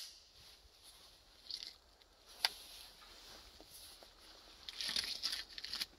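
Faint handling sounds as a Browning BAR Match rifle is raised and aimed: a single sharp click about two and a half seconds in, and soft rustling of clothing near the end.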